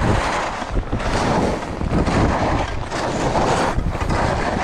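Wind buffeting a GoPro microphone during a fast downhill ski run, mixed with skis scraping and hissing over groomed snow, rising and falling with the turns.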